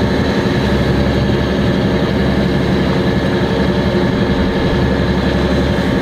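A sailboat's inboard diesel engine running steadily under way, a constant low drone with an even hum of overtones.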